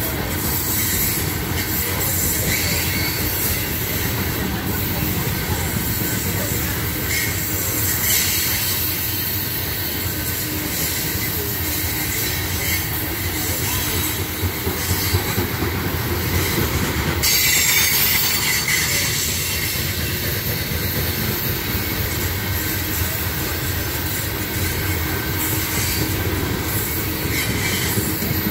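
Loaded coal hopper cars of a long freight train rolling past, their steel wheels rumbling steadily on the rails. High-pitched wheel squeal comes and goes, loudest starting suddenly about two-thirds of the way through.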